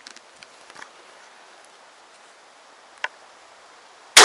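A single shotgun shot fired near the end, very loud and sudden with a long reverberating tail through the forest. Before it, only faint clicks and rustles, with one sharper click about three seconds in.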